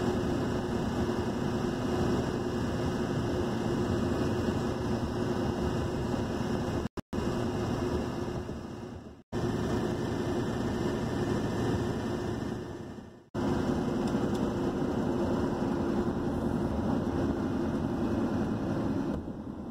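Steady drone of engine and tyre noise inside a truck's cab at highway speed. It breaks off abruptly for a moment three times, about 7, 9 and 13 seconds in.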